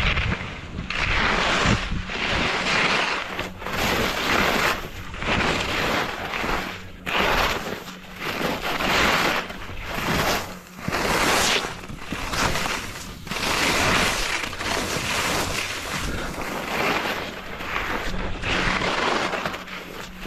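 Skis scraping and skidding through hard, choppy mogul snow, a rasping swish on each turn about once every second or so.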